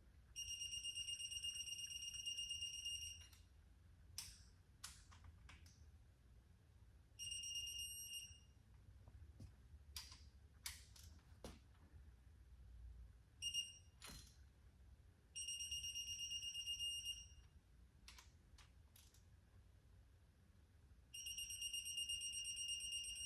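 A digital torque wrench gives out a high-pitched electronic beep as each cylinder head bolt reaches its set torque. It beeps about five times, each beep held for anything from a split second to about three seconds, with sharp clicks of the wrench between them.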